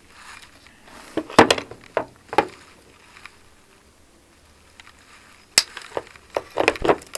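A few sharp clicks and light knocks from pliers working on the wiring and plastic parts of a water purifier's cooling unit, in two clusters with a quieter spell between.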